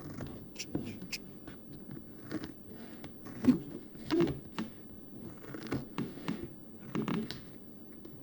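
Scissors snipping and trimming paper, with the paper rustling and being handled: irregular small snips and clicks with a couple of soft knocks about three and a half and four seconds in.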